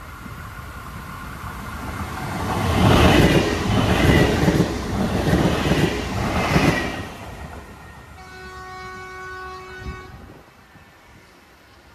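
A train passes by, loud for about four seconds, then fades. About a second later a train horn sounds one steady blast lasting about two seconds.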